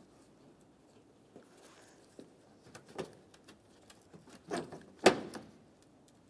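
Plastic push clip being pried out and a hard plastic trim panel handled: a few short plastic clicks and knocks, the loudest about five seconds in.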